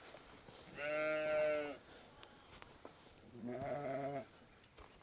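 Katahdin sheep bleating: two calls of about a second each, the second wavering in pitch.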